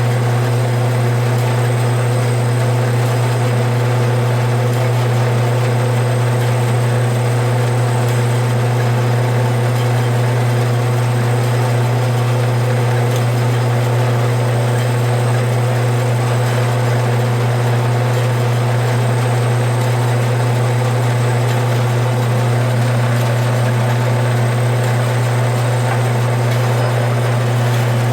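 Band saw running steadily with a loud, even motor hum and hiss as its blade cuts slowly through a thick bar of hard old brass.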